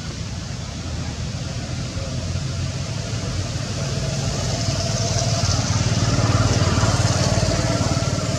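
A motor vehicle's engine runs, with a low hum over a rushing noise. It grows louder over several seconds and eases slightly near the end.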